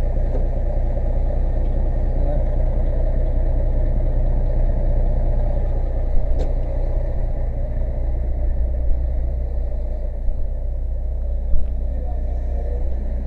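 Fire engine's motor running at a steady idle, a loud, even low rumble, with a sharp click about six seconds in and a few small knocks near the end.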